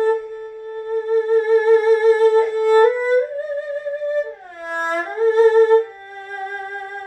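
Solo erhu playing a slow melodic phrase, bowed on the inner string. A long held note with vibrato steps up twice, glides down and slides back up about halfway through, then settles on a lower held note that fades near the end.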